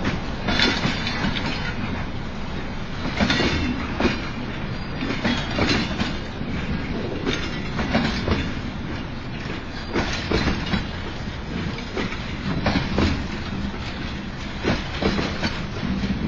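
Freight train of boxcars rolling past: a steady rumble of wheels on rail, with repeated clacks as wheels cross the rail joints.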